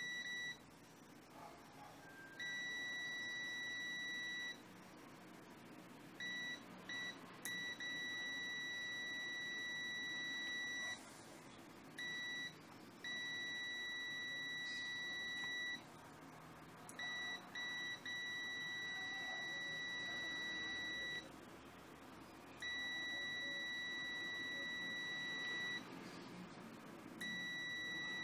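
Extech EX355 multimeter's continuity beeper sounding a steady high-pitched tone with the probes across a halogen bulb's filament, cutting out repeatedly for a second or two at a time and stuttering in short blips around a quarter and two-thirds of the way in. The beep drops out even while the display still shows a reading: an intermittent fault in the meter's continuity beeper.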